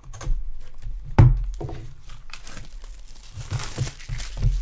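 Cellophane shrink-wrap being slit and pulled off a sealed trading-card box, crinkling and crackling. There is one sharp knock about a second in, and a burst of dense crinkling near the end as the wrap comes away.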